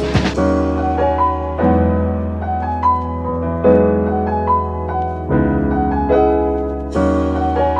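Instrumental background music: sustained keyboard chords with a melody over a steady bass, changing chord every second or two, with no drums.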